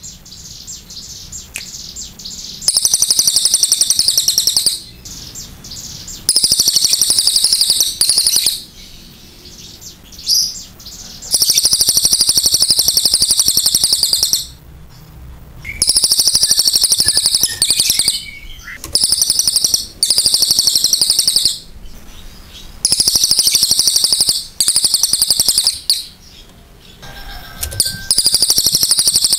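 Caged crested jay (cililin) in full song, giving about nine long bursts of loud, rapid, high-pitched trilled notes, each lasting one to three seconds, with short pauses between them.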